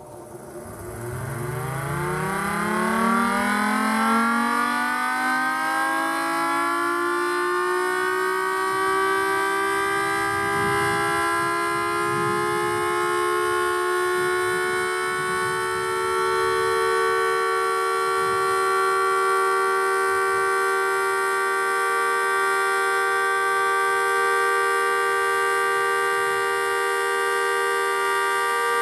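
Electromechanical warning siren winding up from a standstill, its pitch rising over the first few seconds, then holding a steady, loud two-note chord.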